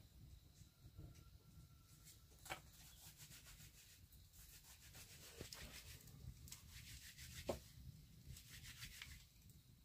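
Near silence: faint rustling or rubbing with two soft clicks about five seconds apart.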